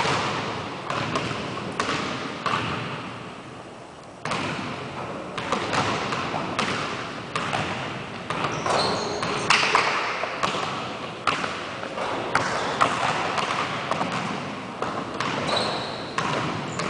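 Basketball bouncing and thudding on a hardwood gym floor during one-on-one play: irregular thuds, often more than one a second, each echoing in the large hall.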